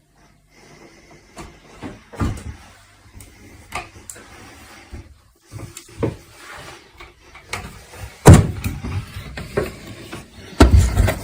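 Irregular wooden thumps and knocks, with the loudest bangs about eight seconds in and again near the end.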